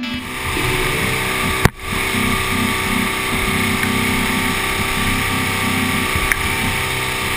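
Yamaha four-stroke outboard running at speed, its steady drone mixed with rushing water and spray from the wake. A brief break about two seconds in.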